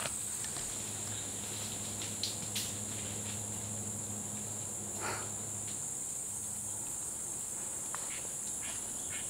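Steady high-pitched drone of insects calling, with a low hum underneath that stops about seven seconds in and a few faint clicks.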